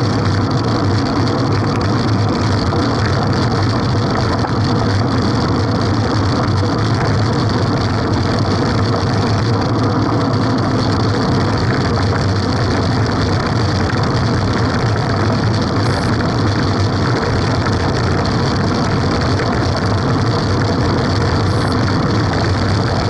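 Steady wind rush and road rumble picked up by a camera riding on a moving road bicycle, heaviest in a low rumble.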